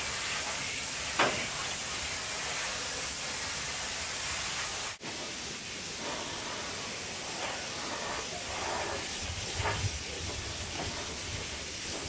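Compressed-air paint spray gun spraying paint: a steady hiss that breaks off for an instant about five seconds in and then carries on.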